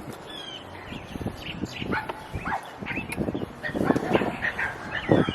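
A dog barking several times in short, separate barks.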